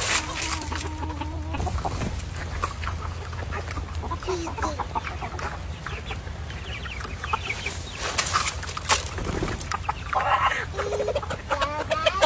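Hens clucking as they peck at scattered grain. Short rustles and taps run among the calls, and the clucking grows busier and quicker near the end.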